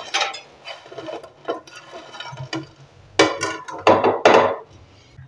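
Crisp fried boondi (gram-flour pearls) pushed off a ceramic plate into a pan of sugar syrup, the little balls clicking and rattling as they drop. There are two louder rattling rushes, about three and about four seconds in.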